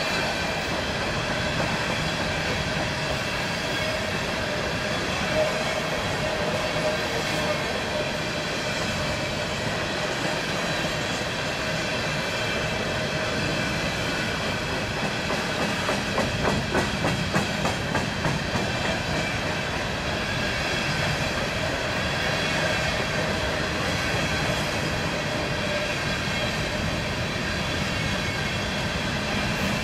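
Empty coal train's cars rolling past: a steady rumble of wheels on rail, with a run of clicking over rail joints a little past the middle.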